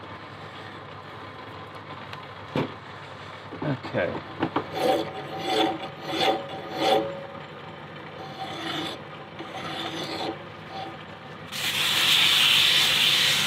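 Hand file stroking a brass handle as it turns in a metal lathe, a run of repeated rasping strokes with a faint metallic ring. Near the end it gives way to a louder continuous rasp.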